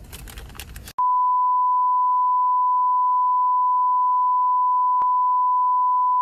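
About a second of background noise cuts off suddenly, and a loud, steady electronic beep, one pure high tone, starts and holds without change. A brief click sounds about five seconds in.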